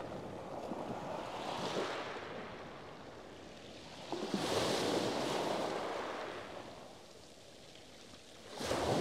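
Small waves breaking on a shingle beach and washing over the pebbles: three surges a few seconds apart, the one about halfway the loudest.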